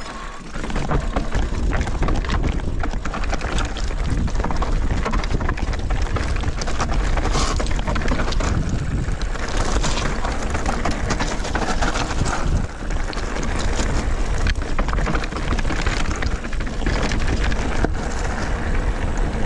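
Electric mountain bike running fast down a loose stony trail: tyres crunching over gravel and rock with constant rattles and clicks from the bike, and wind buffeting the microphone.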